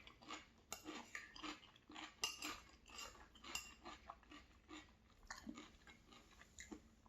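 Faint, close chewing of a mouthful of food with small irregular crunches, and light clicks of cutlery against a dish.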